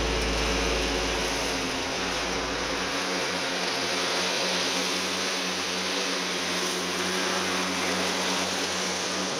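Riding lawn mower's small engine running steadily while it mows, its deck driven by a newly fitted belt. A deeper low rumble underneath fades out about three seconds in.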